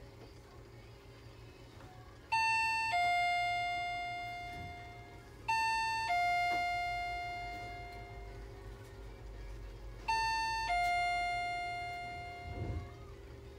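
Electronic two-tone ding-dong chime sounding three times, a few seconds apart; each is a high note followed by a lower note that rings on and fades away. A steady hum runs underneath.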